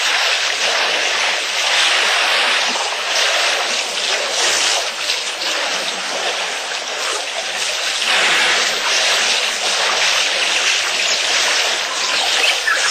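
Water splashing and sloshing as elephants wade and drink at a waterhole: a steady rushing noise that swells and fades every few seconds.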